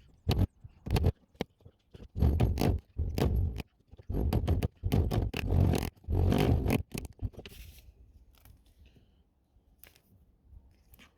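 Leather sling strap being handled and worked: a series of short scraping, rubbing bursts with clicks over the first seven seconds, then only faint handling sounds.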